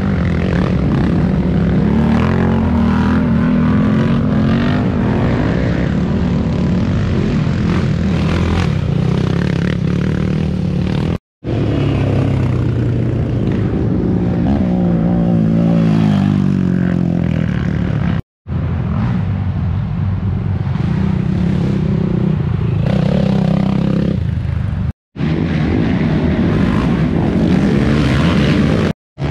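Racing quad (ATV) engines running and revving, their pitch rising and falling. The sound breaks off into brief silences four times, at about 11, 18, 25 and 29 seconds in.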